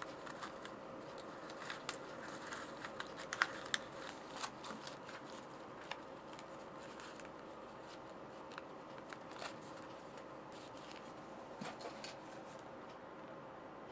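Aluminum foil crinkling and crackling in short, scattered clicks as hands press and shape a foil model, thickest in the first few seconds and sparser after. A faint steady hum runs underneath.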